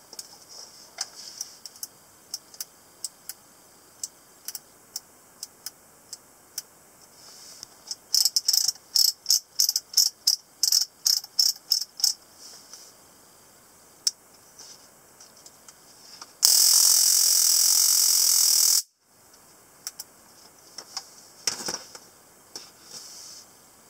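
Plastic switch and handling clicks on a stun gun flashlight, then a fast run of loud sharp clicks lasting about four seconds. Then the S09 stun gun fires: a loud electric crackle lasting about two and a half seconds that cuts off suddenly.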